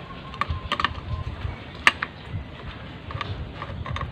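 A few short clicks and taps of tools and small parts being handled on a motorcycle engine under reassembly, the sharpest about two seconds in.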